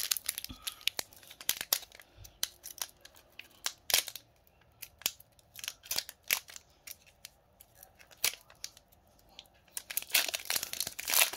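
Foil wrapper of a Pokémon Evolutions booster pack crackling as it is handled, with scattered sharp crinkles, then a denser, louder crinkling and tearing near the end as the pack is opened.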